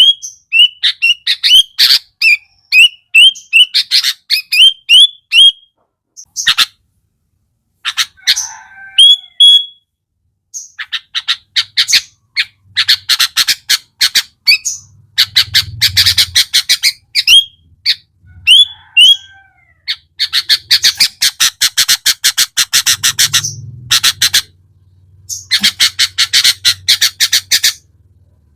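Sooty-headed bulbul singing: a quick series of short upward-hooked whistled notes, then long runs of very fast, harsh rattling chatter broken by short pauses.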